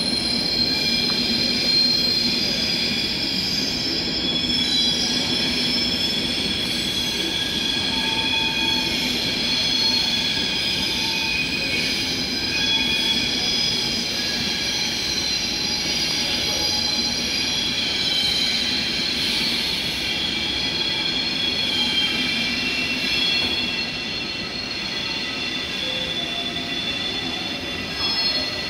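Frecciabianca passenger train rolling slowly into a station, its wheels squealing in several high, wavering tones over a low rumble as it slows for arrival; a little quieter near the end.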